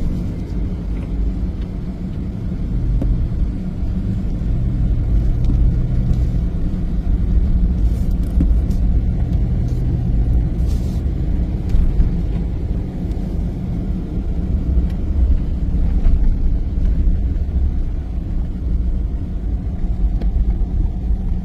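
A car on the move, giving a steady low rumble.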